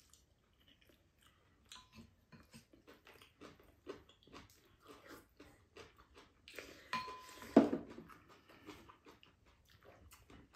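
Two people eating at a table: quiet chewing and small clicks of chopsticks and metal spoons against ceramic bowls, with one louder knock about seven seconds in.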